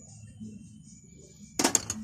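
A quick run of sharp clicks and knocks about one and a half seconds in, over a low steady hum.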